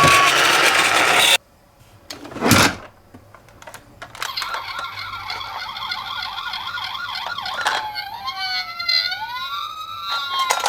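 Toy ambulance minicar sirens sounding, several at once, with overlapping wailing tones that rise and fall from about halfway through. Before that, a loud rushing noise cuts off about a second in, followed by a brief whoosh.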